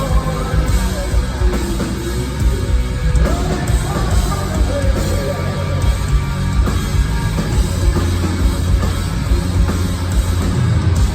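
Rock band playing heavy rock during a sound check: distorted electric guitars, bass and drums with a steady beat. For the first five seconds or so a wavering lead melody rides over the band.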